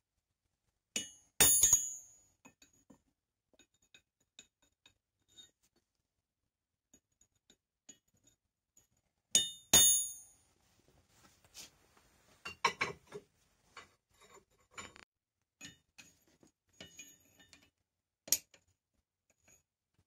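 Steel clinking against steel on an anvil: a forged iron ring and tools set down and handled on the anvil and a steel block. There are two loud ringing clinks about a second and a half in and again near ten seconds in, a run of lighter clinks and knocks a few seconds later, and one sharp clink near the end.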